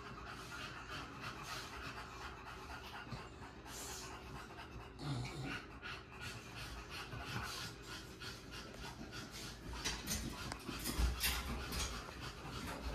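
A micro bully dog panting steadily and quickly, with a few dull bumps near the end.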